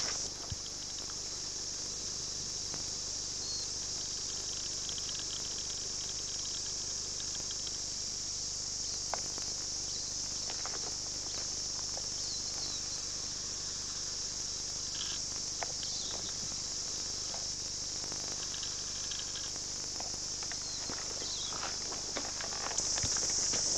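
Steady high-pitched insect chorus buzzing in the bush, growing louder near the end, with occasional faint clicks and taps.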